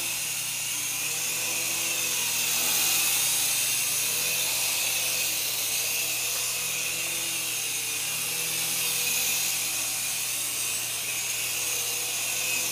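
Syma S107 micro RC helicopter's small electric motors and coaxial rotors whirring in flight: a steady high whine whose pitch wavers up and down a little as the throttle changes.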